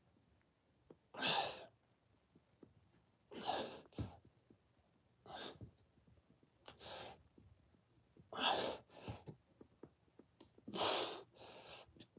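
A man's forceful, breathy exhalations during push-ups, one with each rep, about every two seconds, with a few softer breaths in between.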